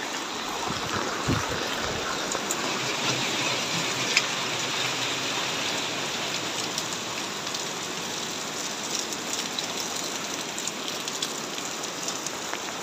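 Steady rain falling on hard surfaces, with scattered drip and splash clicks.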